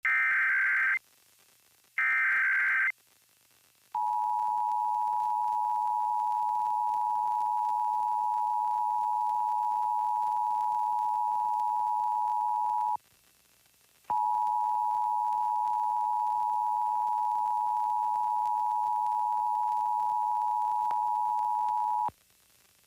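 Emergency Alert System tones opening a Required Monthly Test: two one-second bursts of buzzy SAME digital header data. From about four seconds in, the steady two-tone EAS attention signal (853 and 960 Hz) sounds, breaks off for about a second near the middle, resumes, and stops shortly before the end.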